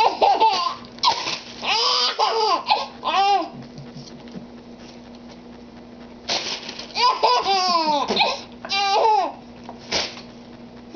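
Baby laughing in two bouts of a few seconds each, with a quiet lull between them.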